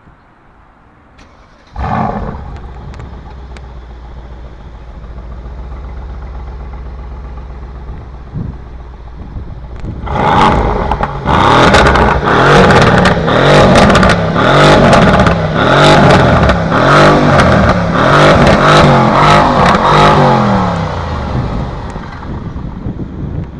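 Mercedes-AMG C63 S Coupe's twin-turbo V8 exhaust: the engine fires up with a sudden loud flare about two seconds in and settles to idle. From about ten seconds in it is revved in a string of quick blips, the pitch rising and falling with each one, with sharp crackles and pops, before dropping back to idle near the end.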